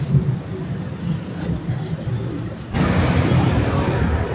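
A steady low rumble of vehicle noise, with a thin high whine that cuts off suddenly a little under three seconds in, after which a brighter hiss comes in.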